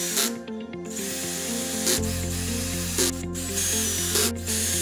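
DeWalt cordless drill/driver driving wood screws into the wooden fence of a crosscut sled, its motor whirring in several runs with short stops between them.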